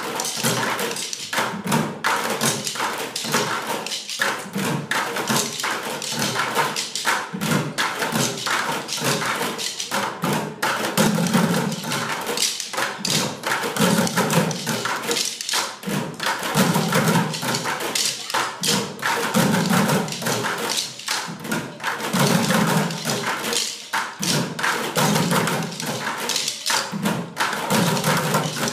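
An ensemble of children drumming with sticks on plastic buckets, playing a steady, dense rhythm of many sharp hits and deeper thumps.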